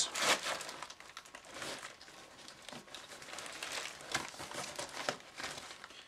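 Plastic-wrapped medical supplies crinkling and rustling as they are handled in a backpack compartment. Loudest at the start, then lighter scattered rustles and small clicks.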